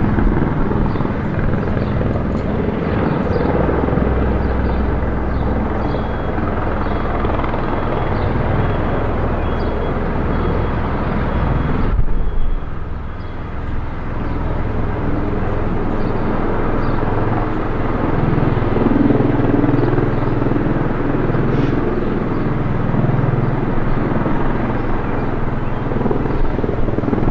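Bell Boeing V-22 Osprey tiltrotor in helicopter mode, its twin proprotors and turboshaft engines making a loud, steady drone as it hovers low and descends to land. The sound dips briefly about twelve seconds in, then returns.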